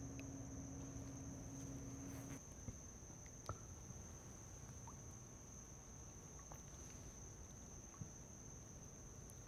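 Faint night ambience: crickets trilling as one steady high tone, with a low hum underneath that cuts off about two and a half seconds in and a few soft clicks.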